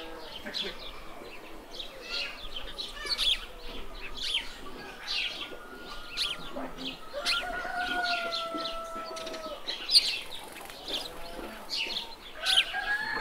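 Small birds chirping busily in quick, high calls, with one long, slightly falling call held for about two seconds around seven seconds in. A single sharp click about ten seconds in is the loudest moment.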